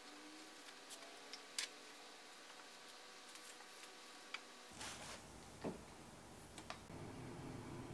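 Faint, scattered clicks and taps from making dumplings by hand: a metal spoon in a stainless-steel bowl of filling and dough wrappers being pleated. About half a dozen separate ticks over a quiet room, with a low hum rising about five seconds in.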